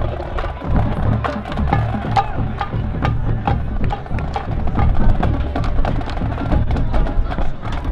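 Marching band drumline playing a percussion cadence: a fast, even run of sharp stick clicks over bass drums.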